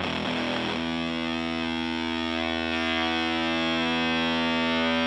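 Electric guitar (PRS SE Custom) through the Power2 fuzz pedal into a Fender Blues Junior tube amp: a few quick picked notes, then a fuzzed chord struck about a second in and left ringing, sustaining and swelling slightly.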